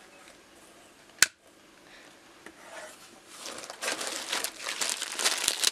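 A single sharp click about a second in, then packaging being handled and crinkled from about three seconds in, growing louder toward the end.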